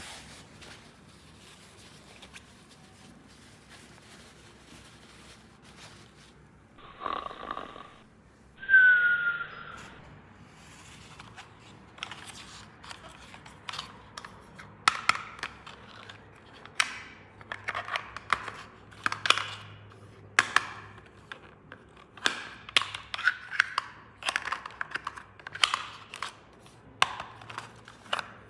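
Handling of plastic toy pieces and packaging: a run of sharp clicks and snips, several a second in places, beginning about halfway through. Before that, two short louder bursts come about seven to ten seconds in.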